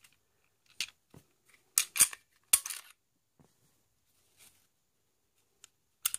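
Ruger SR40 pistol being worked by hand, its mechanism clicking: one click just under a second in, a cluster of louder clicks and clacks around two seconds in, then a few faint ticks and a last click near the end.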